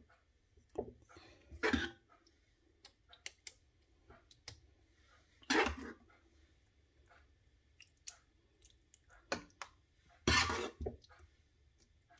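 A metal ladle spreading minced-meat sauce in a lasagna baking tray: scattered light clicks and taps, with three louder short scraping sounds, about two, five and a half, and ten and a half seconds in.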